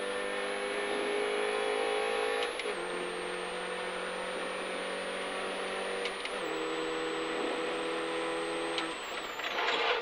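Rally Mini's engine under full throttle, heard from inside the cabin: a steady high-revving note that drops in pitch at two upshifts, about a third of the way in and just past halfway, with a high whine that steps down along with it.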